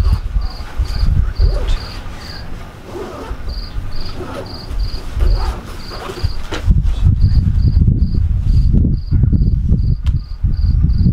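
Crickets chirping in a steady, even rhythm of about three to four chirps a second, with short pauses between runs, over a loud, uneven low rumble.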